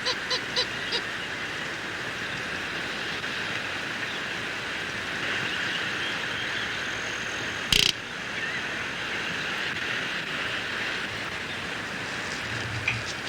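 Steady outdoor background hiss. The tail of a rapid pulsed animal call, about six pulses a second, fades out about a second in, and a single sharp knock comes a little past halfway.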